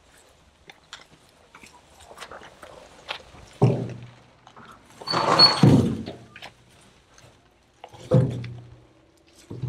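Leafy broken tree branches thrown into a Kioti tractor's front-loader bucket: three heavy thunks a couple of seconds apart, the middle one a longer crash of rustling leaves, with faint twig crackles in between.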